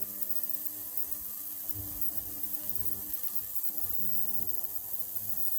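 Ultrasonic cleaner running with a tank of degreaser and dish-soap solution: a steady electric buzz with a constant high-pitched whine over it.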